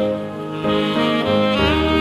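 Instrumental music: a melody of held notes stepping from one pitch to the next over a sustained accompaniment.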